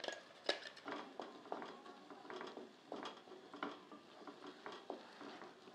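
Wooden spatula stirring thick ground red chilli paste into fried onions and garlic in a kadai: faint, irregular scraping with light taps against the pan.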